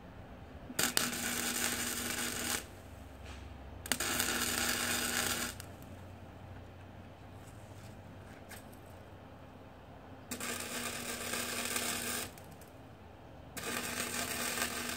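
Electric arc welding: four short welds of one and a half to two seconds each, a crackling hiss with a steady hum under it, with pauses between. They are spot welds tacking two steel angle irons together into a square channel.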